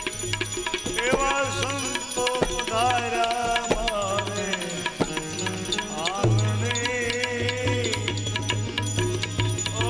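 Gujarati devotional bhajan music: an ornamented melody line over tabla strokes and a steady low drone that grows stronger about six seconds in.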